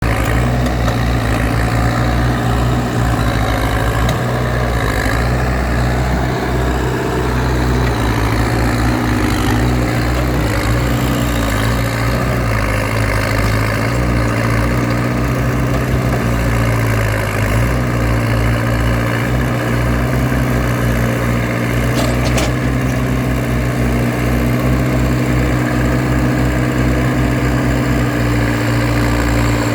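Case Super L backhoe loader's diesel engine idling steadily, with a slight dip in pitch about 17 seconds in and a faint click about 22 seconds in.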